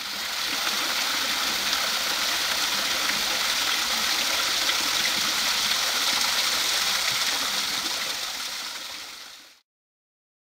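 Water spilling and splashing through the leaking seam between closed wooden canal lock gates, a steady rush that fades away near the end.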